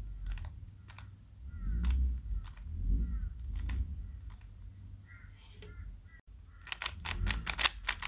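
A stickerless 3x3 speed cube being turned by hand: separate plastic clicks of layer turns, then a quick flurry of clicks near the end. A couple of dull low thumps come about two and three seconds in.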